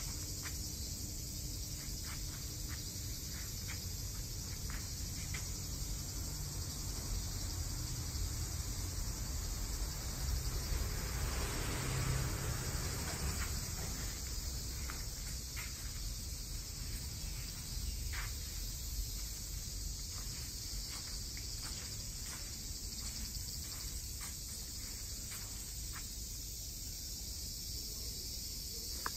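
Steady high-pitched chirring of insects over a low rumble, with scattered light ticks and a broad swell of noise that rises and fades around twelve seconds in.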